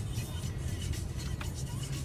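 Steady low road and engine rumble inside a moving car's cabin, with music playing in the car.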